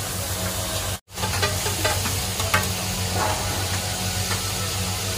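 Butter and burgers sizzling on a large flat iron griddle, with a few short taps and scrapes of a metal spatula, over a steady low hum. The sound drops out for an instant about a second in.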